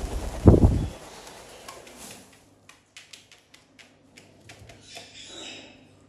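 A loud rustling thump in the first second, then a run of short, sharp clicks as a fennec fox gnaws kernels off a cob of corn.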